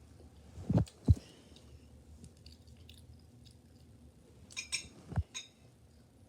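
Dull low thumps, two close together about a second in and another near the end, with a few light clicks and knocks around them.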